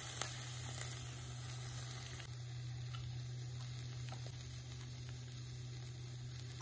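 Burger buns, egg and shami patty sizzling in oil in a frying pan, a steady hiss with a few faint ticks, over a steady low hum.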